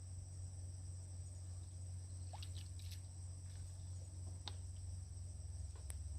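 Insects shrilling in a steady high drone over a low steady hum, with a few faint clicks in the second half.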